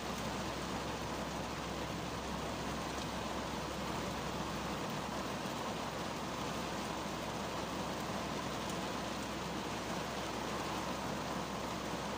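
Rain falling on a car's windshield and body, heard from inside the cabin of a 2010 Kia Cerato: a steady, even hiss.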